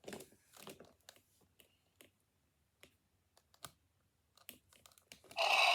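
Plastic dinosaur toy figures being handled: scattered light clicks and taps of plastic on plastic. A louder, sustained sound starts near the end.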